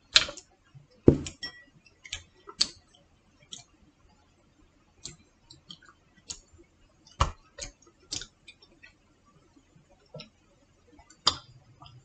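Irregular sharp clicks and clinks of a drinking glass and a citrus juicer being handled and set down on a table, with two louder knocks about a second apart near the start.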